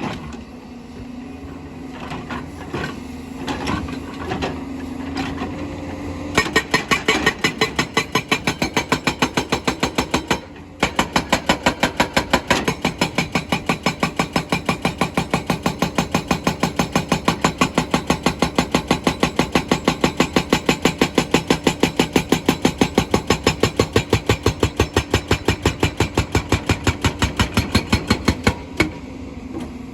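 Excavator engine running with a few scattered knocks. About six seconds in, a hydraulic rock breaker starts hammering stone in rapid, even blows, several a second. It pauses briefly near ten seconds and stops shortly before the end.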